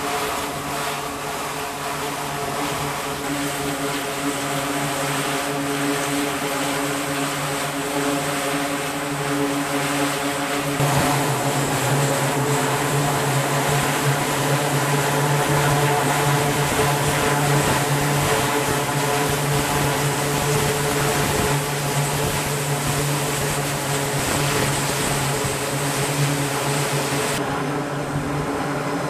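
E-2 Hawkeye's twin T56 turboprop engines running on the flight deck: a steady propeller drone with a low hum under a hiss. About eleven seconds in it changes abruptly and gets louder.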